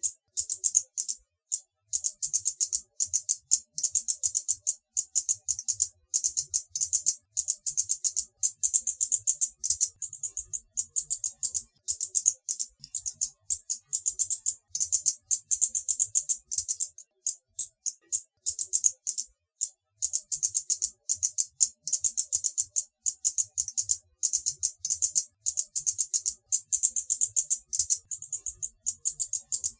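Hummingbird chittering: rapid trains of very high, dry chip notes in runs of a second or more, broken by short pauses.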